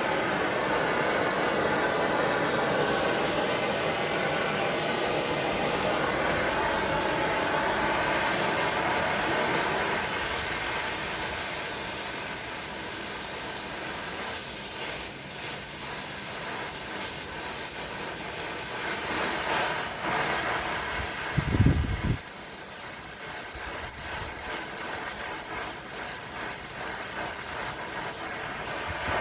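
Gas torch flame hissing steadily while heating metal, quieter from about ten seconds in. A short, loud low rumble comes near the end, after which the hiss is lower.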